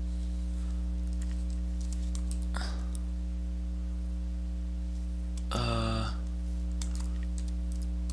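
Typing on a computer keyboard: scattered light keystrokes over a steady low electrical hum, with a short vocal sound about five and a half seconds in.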